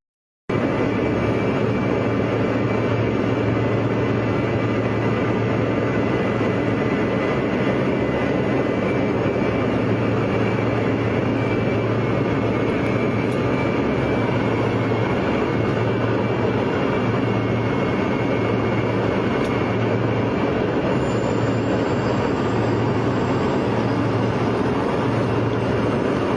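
Steady vehicle drone: a loud, unchanging rush with a low hum, cutting in abruptly about half a second in.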